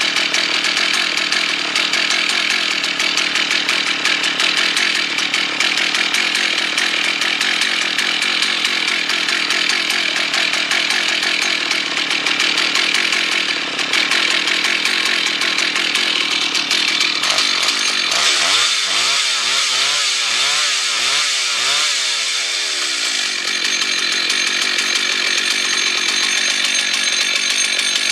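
Two-stroke chainsaw running steadily for a long stretch. Past the middle its pitch wavers up and down several times for a few seconds.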